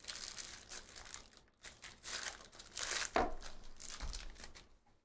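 Trading cards being slid and flipped through the hands, a run of dry papery rustles and crinkles, with a soft thump about three seconds in.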